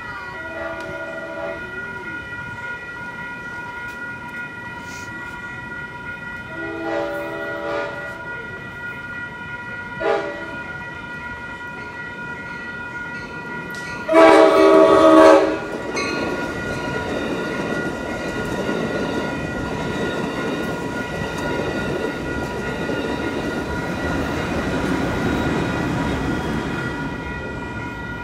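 Passenger train's air horn sounding the grade-crossing signal, long, long, short, long, with the last blast the loudest: the warning that a train is about to cross. After the horn, the train's rumble and wheel noise build up, over the steady ringing of the crossing's warning bell.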